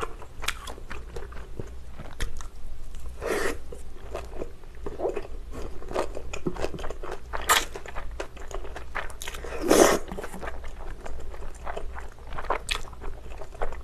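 Close-miked eating sounds: wet chewing and mouth smacks on thick Chinese glass noodles in spicy sauce and a big bite of gimbap, with noodles slurped in. Two longer, louder sounds stand out about three and ten seconds in.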